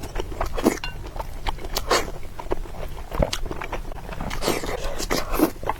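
Close-miked eating sounds: irregular biting, chewing and wet mouth smacks as a person eats.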